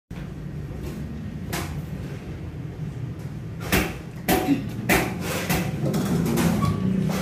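Handling noise at a gas stove: a few sharp clicks and knocks, most of them between about three and a half and five and a half seconds in, over a steady low hum.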